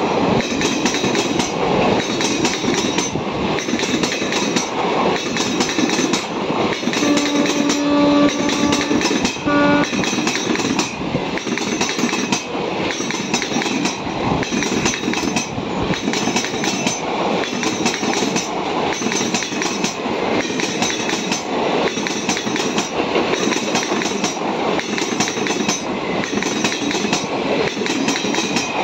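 Passenger coaches of an express train passing at speed, their wheels clattering over the rails and the crossing's wing rail in a regular rhythm of about one clatter a second over a steady rushing roar. A train horn sounds about seven seconds in, and again briefly a couple of seconds later.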